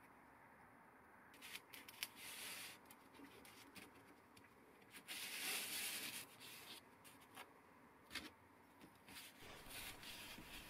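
Faint handling noises of small steel knurling-tool parts being fitted together and set down: scattered light clicks and rubbing, with a longer scraping stretch about five seconds in.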